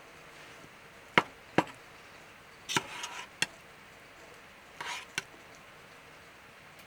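A series of sharp wooden knocks, some single and some in quick clusters, like chopping or splitting wood.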